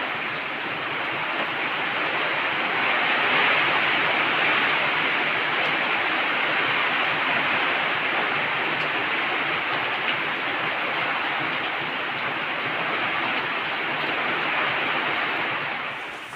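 Heavy rain pouring, a steady loud rush that cuts off suddenly near the end.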